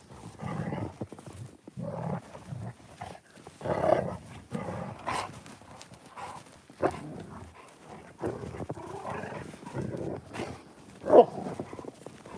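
Great Pyrenees dogs vocalizing in short, uneven bursts as they play together, with one sharper, louder sound about eleven seconds in.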